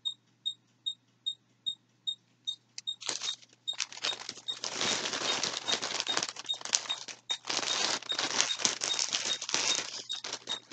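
Plastic packaging crinkling and rustling in close, irregular bursts, starting about three seconds in, as it is handled. Under it, a short high pip repeats evenly about two and a half times a second.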